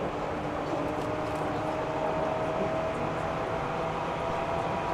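Running sound inside a chopper-controlled Seibu 3000 series electric train: the traction motor whine rises slowly in pitch as the train gathers speed, over a steady noise of the car running on the track.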